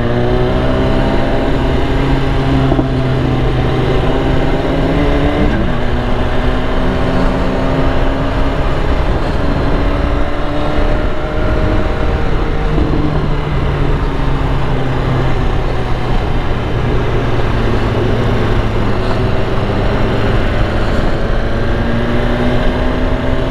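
BMW S1000RR inline-four motorcycle engine running under way, its note rising and falling gently with the throttle, over steady wind noise on the helmet.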